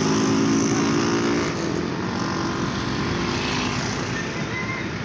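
A motor engine hums steadily over a broad rushing noise; the hum fades after about a second and a half while the rushing noise goes on.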